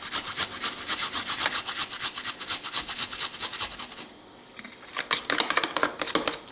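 Garlic clove grated on the fine side of a metal hand grater: rapid, even rasping strokes for about four seconds, then a short pause. After the pause, a spoon scrapes around a plastic bowl as the grated garlic is stirred into the sour-cream sauce.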